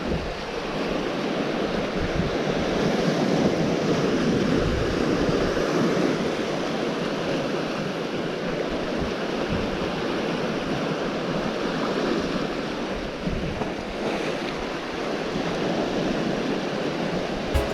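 Sea surf washing steadily on the shore, with wind gusting on the microphone.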